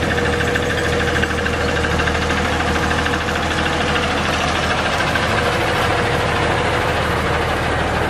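Diesel engine of a semi truck running steadily at low speed as the truck pulls a container trailer.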